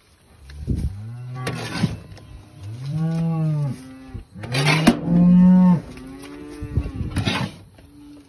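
Cows mooing several times, one long low call after another, with a few short scraping knocks in between.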